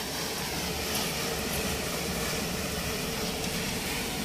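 Dump truck's diesel engine running steadily as the truck creeps forward with its bed raised, spreading a layer of sand-and-gravel fill from the open tailgate.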